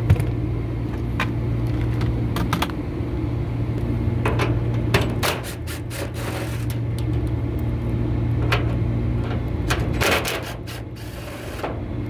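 Short runs of a DeWalt cordless driver and clicks and clanks of metal as bolts and a blower-shaft bearing bracket come off, over a steady low hum. The loudest sharp strokes come in a cluster about ten seconds in.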